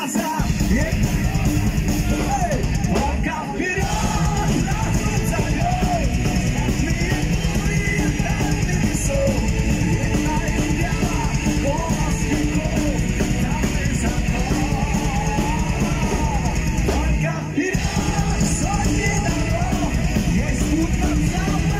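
A heavy metal band playing live: distorted electric guitars, bass and drum kit, with the lead singer singing and shouting into the microphone. The bass and drums drop out for a moment twice, a few seconds in and again later.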